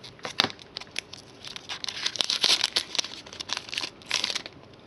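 Foil trading card pack being torn open and crinkled by hand: a dense run of sharp crackles and rips, with one louder snap about half a second in.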